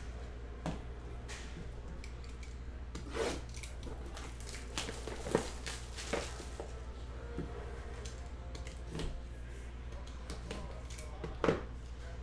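Hands handling a sealed 2022 Leaf Vibrance cardboard hobby box on a table mat. Scattered knocks, taps and rubs, the loudest about three seconds and eleven and a half seconds in, over a steady low hum.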